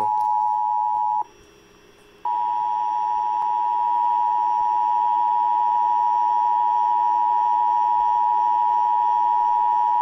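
Emergency Alert System attention tone for a shelter-in-place warning: a loud, steady high-pitched tone that drops out about a second in, returns a second later and then holds unbroken.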